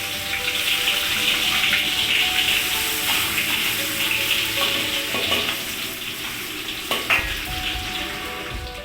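Food sizzling as it fries in hot oil in a pan, a dense steady hiss, with two sharp knocks about five and seven seconds in.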